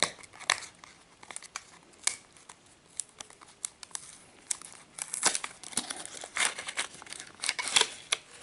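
Small cardboard toy box being picked open by hand, then its clear plastic insert crinkling as it is slid out. Irregular clicks and rustles, sparse at first and busier in the second half.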